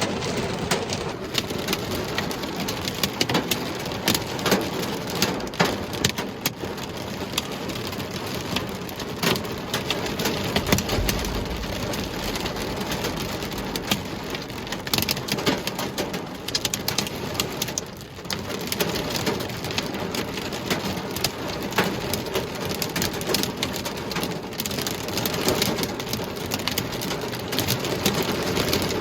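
Heavy thunderstorm downpour: a dense, steady hiss of rain with many sharp hits against surfaces, and a brief low rumble about eleven seconds in.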